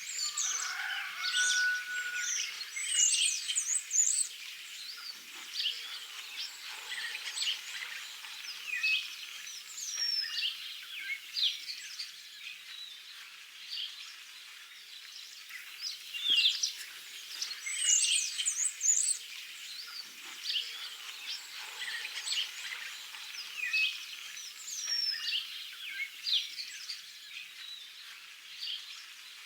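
Several small songbirds chirping and singing at once, quick high calls and trills overlapping without a break. About a second in, one bird holds a brief steady whistle.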